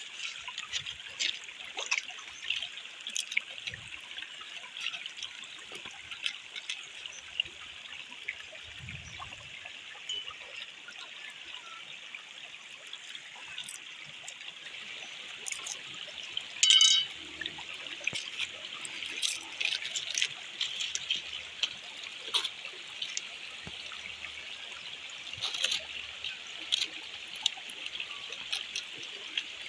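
Shallow stream trickling over flat rock, with scattered light clicks and scrapes throughout. One brief, much louder sharp sound just past halfway.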